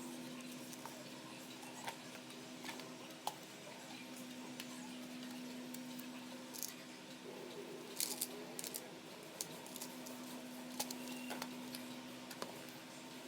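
Scattered light clicks and taps of small objects being handled, bunched together about two-thirds of the way through, over a steady low hum.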